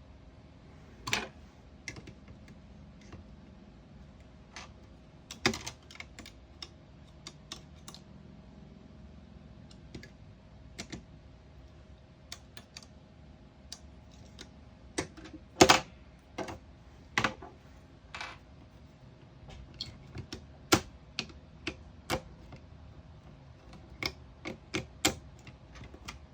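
Irregular sharp taps, single or in quick pairs and unevenly spaced, tapping to set off the sound trigger of a Snap Circuits sound-effect circuit, over a faint steady hum.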